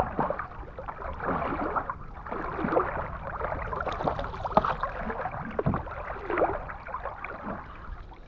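Paddles dipping and splashing in river water in irregular strokes, with water sloshing and a low rumble under it.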